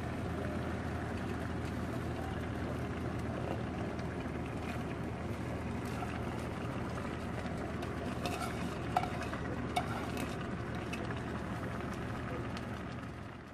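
Corned beef and potato mixture simmering in a skillet, a steady bubbling hiss over a low hum. Between about 8 and 10 seconds in, a few light clicks and rustles come as shredded cabbage is pushed off a plate into the pan.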